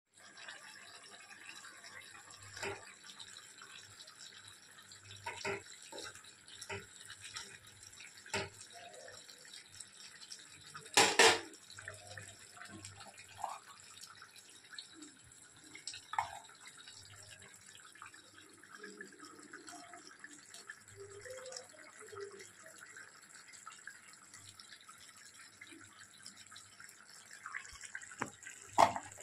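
A stirring utensil knocking and scraping against a kadhai of curry in short, scattered clinks over a faint steady hiss, with one louder clatter a little before the middle and another near the end.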